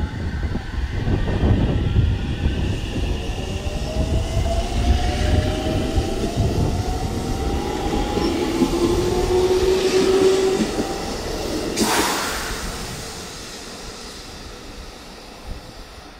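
JR Central 313 series electric train pulling away, its traction motors giving several whines that climb slowly in pitch as it accelerates, over a low rumble of wheels on rail. There is a short sharp noise about twelve seconds in, and then the sound fades as the train moves off.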